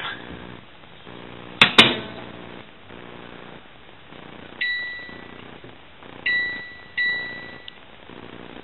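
Microwave oven: two sharp clacks about a second and a half in, then three electronic keypad beeps, each under a second long, as the oven is set.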